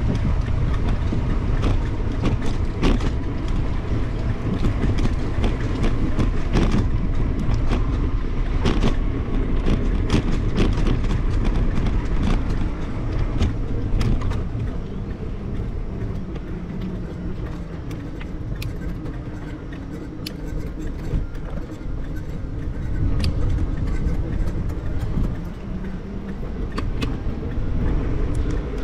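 Wind rumbling over the microphone of a bicycle-mounted action camera while riding along a paved path, with frequent clicks and rattles from the bike over bumps.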